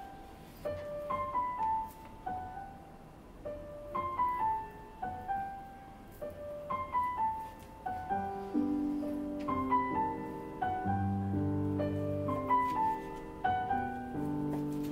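Background piano music: a repeating melody of short falling notes, with lower held chords coming in about eight seconds in.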